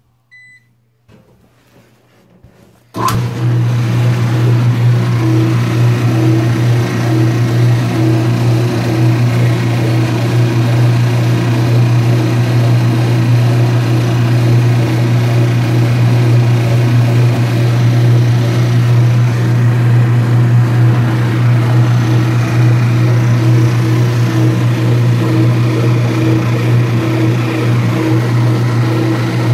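Speed Queen washing machine's motor starting abruptly about three seconds in and then running with a loud steady hum and a faintly pulsing higher note. The owner is unsure whether this noise is normal or a sign the machine needs servicing.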